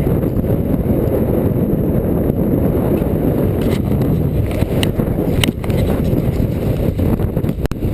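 Wind buffeting the microphone: a loud, steady low rumble, with a few short clicks about halfway through and again near the end.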